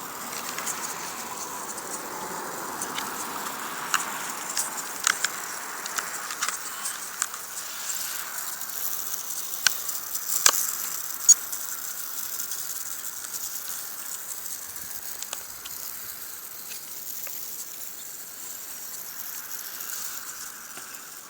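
The metal-gear servos of a Blade 180 CFX micro RC helicopter buzzing faintly during pre-flight control checks, with scattered sharp clicks from handling the model and transmitter; the loudest click comes about ten seconds in.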